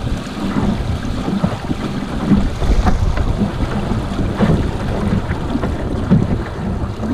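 Wind rumbling on the deck-mounted camera's microphone, with water rushing and slapping against the hull of a Snipe sailing dinghy under way in choppy water.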